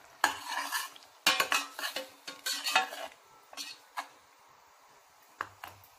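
A metal spoon stirring and scraping around a stainless steel pot of thick tomato and onion mixture. There is a quick run of scrapes and clinks for about three seconds, then a few single taps against the pot.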